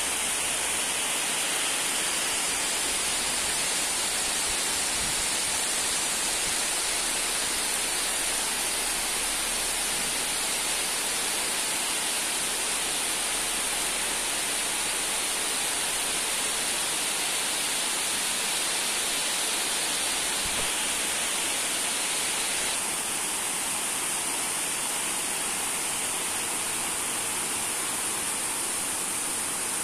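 Heavy downpour on a pond's surface and on surrounding trees and bamboo: a steady, even hiss of pouring rain, a little softer in the last quarter.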